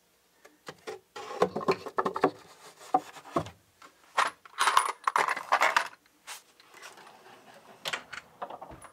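A wooden drawer and a tray of MDF clamps with threaded steel studs being handled: clattering and metallic jingling from loose washers and nuts in plastic bins, with wooden knocks. The clatter is busiest in the first half and thins to a few light knocks near the end.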